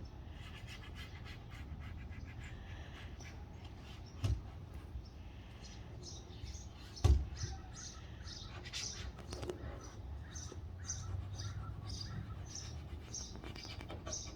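A bird chirping over and over, about twice a second through the second half, with two sharp knocks, the second and louder one about halfway through, over a low steady rumble.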